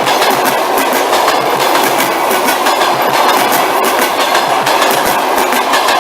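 Passenger train rolling past, the coaches' wheels clattering over the rail joints in a rapid, steady clickety-clack over a loud, continuous rumble.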